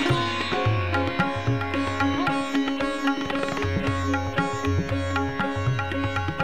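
Background instrumental music in an Indian classical style: a plucked string instrument playing a run of quick notes over a steady drone, with low beats repeating underneath.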